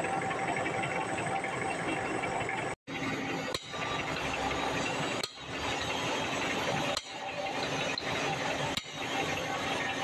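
Steady machinery noise with faint steady hums in it. It drops out abruptly for an instant about three seconds in and dips briefly several more times.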